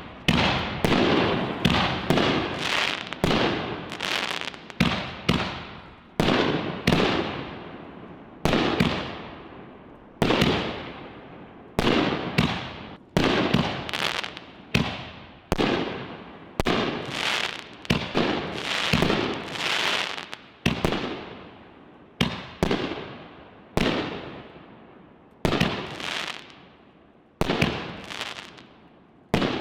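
4-inch canister artillery firework shells going off in quick succession: a long run of sharp bangs, roughly one a second, each dying away over about a second before the next.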